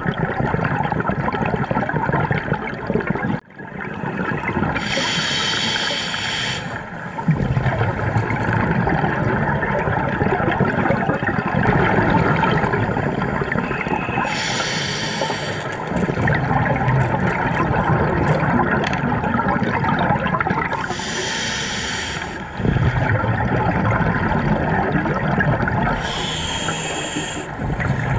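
Scuba diver breathing through a regulator underwater: the exhaled air bubbles out in a short hissing rush four times, about every six to eight seconds, over a steady muffled water noise.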